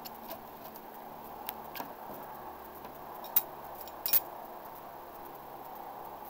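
Throwing knives clicking and clinking against each other in a hand, a few light metallic clicks with a sharper single click about three seconds in and a quick double click just after four seconds, over a steady background hiss.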